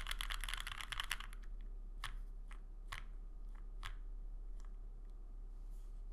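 Mechanical keyboard typing on a Monokei Kei R2 with lubed 43 Studio OPBlack linear switches in an O-ring-mounted aluminum full plate, with GMK keycaps. A quick run of keystrokes for about a second is followed by about six single, spaced-out key presses, which stop a little under five seconds in.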